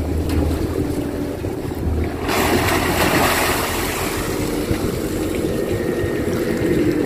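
Kato excavator's diesel engine running steadily while it digs. About two seconds in, water and mud pour and splash loudly off the bucket as it lifts out of the canal, fading over the next couple of seconds.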